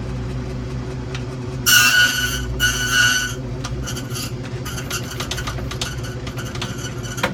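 Key-cutting machine running with a steady motor hum. Its cutter bites into a padlock key blank in two loud, high-pitched passes about two and three seconds in, followed by a run of light clicking and scraping.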